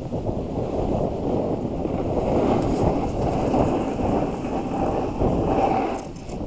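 Wind buffeting an action camera's microphone while its wearer rides downhill on a ski slope, a steady rumbling rush with a hiss of snow sliding underfoot. It eases briefly near the end.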